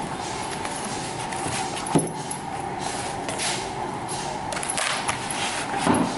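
Thin wood veneer sheets rustling and slapping as they are sorted and stacked by hand, with a sharp slap about two seconds in and another near the end, over steady factory background noise.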